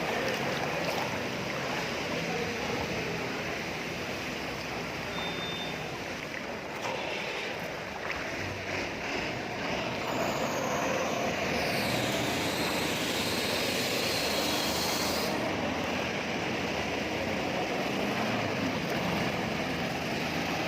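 Steady running noise of a bus on the move: engine hum with tyre and road noise. About ten seconds in, a high hiss starts, falls in pitch and stops suddenly some five seconds later.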